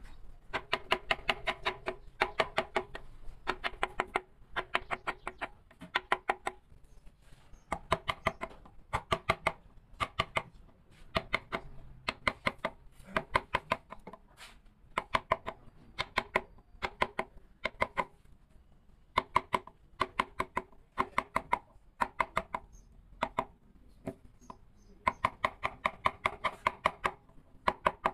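A mallet striking a carving chisel into wood in quick bursts of several taps, about one burst every second or so. Each burst has a slight ringing tone from the struck metal.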